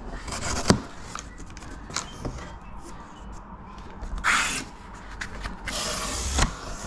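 A cardboard shipping box being cut open with a knife and its flaps handled: a sharp knock under a second in, a few light taps, then two scraping, rustling sounds of cardboard, one a little past halfway and one near the end.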